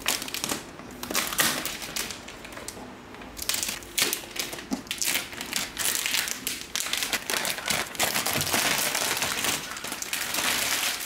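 Clear plastic protective wrap crinkling and rustling as it is peeled off an iMac's aluminium body, sparse at first and growing denser and more continuous about a third of the way in.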